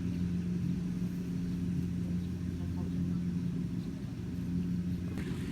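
An engine running steadily at constant speed, a low, even hum. A few faint clicks come near the end.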